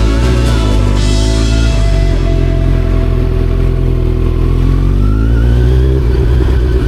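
Motorcycle engine running under way, its pitch rising from about five seconds in as it accelerates, with music playing alongside.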